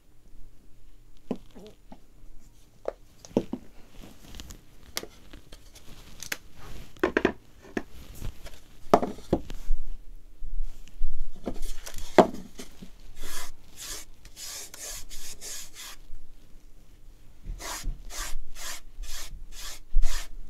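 A foam sponge brush rubs acrylic paint in even, repeated strokes of about two to three a second in the second half. Before that come scattered taps and knocks as the paint bottle, brush and MDF box are handled.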